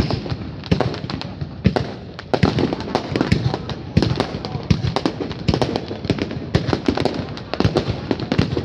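Aerial fireworks display going off: a dense, irregular run of sharp bangs and crackles, several a second, over a constant rumble.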